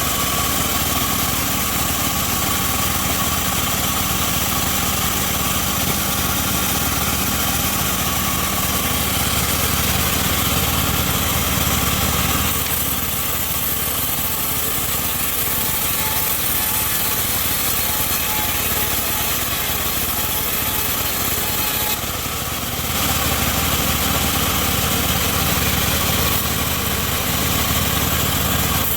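Homemade bandsaw mill running with a steady machine drone. Its low tone shifts about halfway through, and the level dips briefly a little over 20 seconds in.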